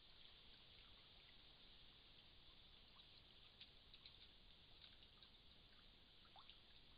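Near silence: the steady faint hiss of a trail camera's microphone, with a few faint scattered ticks and one brief faint rising note near the end.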